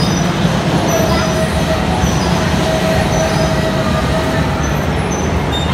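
Steady loud din of an indoor bumper-car rink, with electric bumper cars running over the floor amid general arcade noise and faint high beeps.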